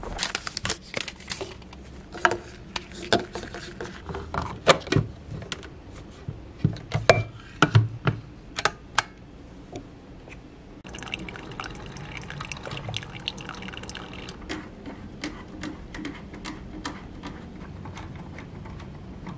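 A coffee maker brewing into a mug: a steady hiss of pouring liquid for about three seconds, a little past halfway. Before it come sharp clicks and knocks of handling, and lighter ticks follow it.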